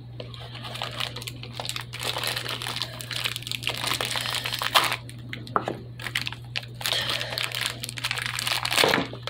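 Toy packaging being pulled apart by hand: a cardboard egg-shaped shell and its paper filling crinkling and rustling without a break, with a low electrical hum under it.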